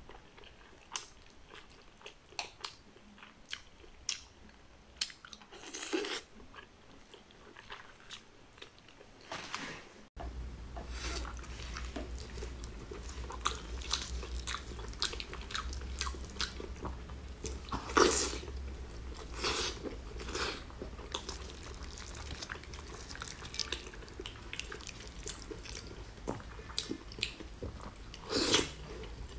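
Close-miked eating sounds: chewing and biting with wet mouth noises. About ten seconds in, the sound changes abruptly to louder tearing and biting of braised pork knuckle meat over a steady low hum, with one especially loud bite near the middle.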